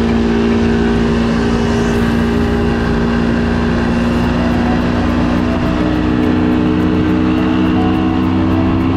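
Motorboat engine running steadily at towing speed, its pitch creeping slowly upward, over a constant rush of wind and water.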